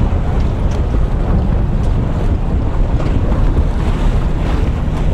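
Wind buffeting the microphone in a steady low rumble, over choppy water lapping and splashing, with a few faint splashes standing out.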